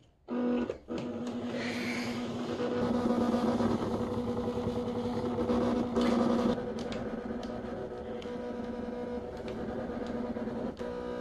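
Provo Craft Cricut Expression cutting machine cutting letters from gray paper: a steady motor hum that starts about a quarter second in, with scattered short clicks as it works.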